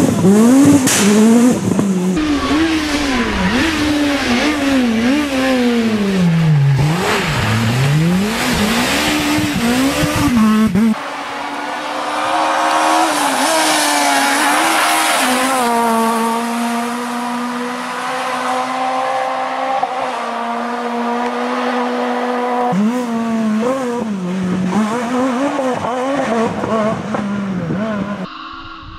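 Renault Clio S1600 rally car's naturally aspirated 1.6-litre four-cylinder engine at full stage pace: revs rise and drop sharply again and again through gear changes and corners, then climb to a high note held steady for several seconds before dropping and rising again.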